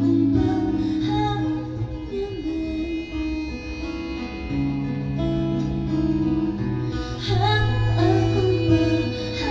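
Live band music: an acoustic guitar and an electric guitar playing an instrumental stretch of a song, over low sustained notes that change every second or two.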